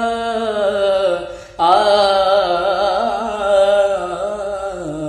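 Male voice singing long, drawn-out vowel notes of a Hindi Sai bhajan, the pitch wavering on each held note. One phrase falls away about a second in, and a new one starts about a second and a half in.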